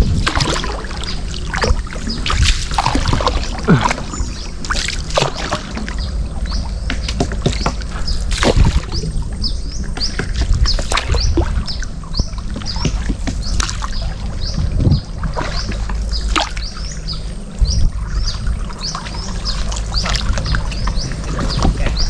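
Paddle strokes and water splashing from a small boat being paddled, over a low steady rumble. From about a third of the way in, a bird chirps over and over, with short high chirps a few times a second.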